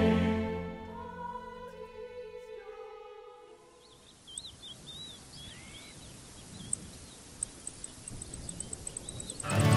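Choral vocal harmony fading out over the first few seconds, then quiet outdoor ambience with scattered bird chirps and a faint, fast, high-pitched ticking that grows steadier toward the end.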